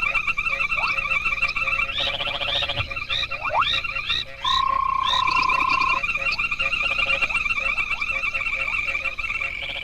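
A dense breeding chorus of many frogs calling at once, a racket of males calling for mates: steady pulsing trills overlaid with short rising chirps, and a long, even whistle-like note about halfway through.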